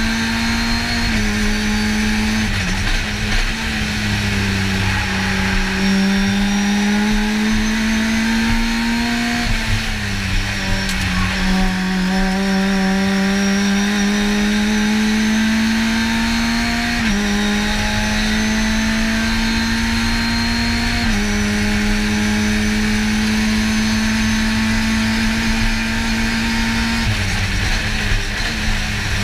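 Racing car engine at high revs, heard from inside the cockpit. Its note climbs slowly and steps down several times as gears are changed, over constant wind and road noise.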